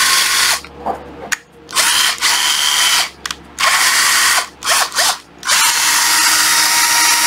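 12V cordless drill-driver motor running in several runs of one to two seconds, stopping briefly between them as the trigger is released and pulled again, with a steady whine.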